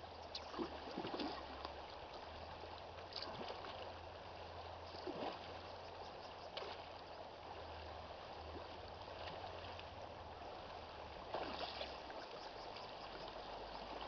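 Shallow river running over stones, a steady rush of water, broken by a few short splashes as a salmon is landed by hand.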